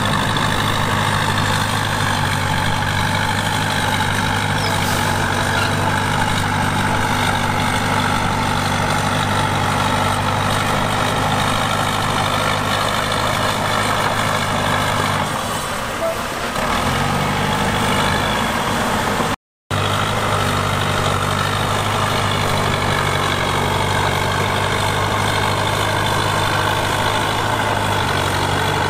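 Heavy earthmoving machine's diesel engine running steadily, easing off briefly a little past halfway. The sound cuts out for an instant about two-thirds of the way through.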